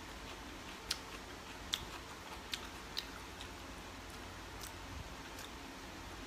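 A person chewing soft steamed rice rolls (bánh ướt) with a closed mouth: quiet, with about six faint wet mouth clicks spread through it over a low steady hum.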